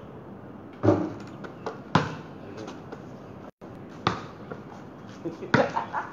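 Basketball bouncing on concrete: a handful of separate sharp thuds a second or two apart, the loudest about a second in, with a few lighter knocks between.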